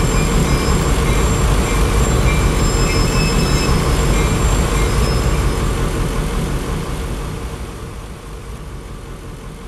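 Diesel locomotive engine running with a steady low rumble and a faint high whine, fading out over the last few seconds.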